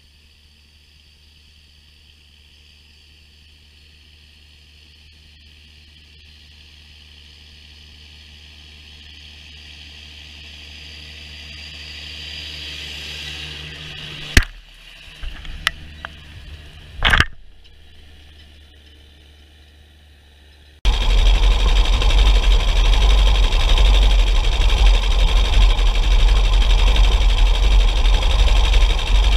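John Deere 6920 tractor's six-cylinder diesel engine running, growing steadily louder as the tractor comes closer, with a few sharp knocks as its tyre rolls past close by. About two-thirds of the way in it switches abruptly to the engine running loud and steady from close up.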